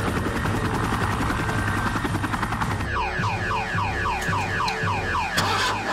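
Helicopter rotor chopping with turbine noise over a synth film score with a repeating bass line. From about halfway the helicopter gives way to a rapid series of falling electronic chirps, about three a second, in the score.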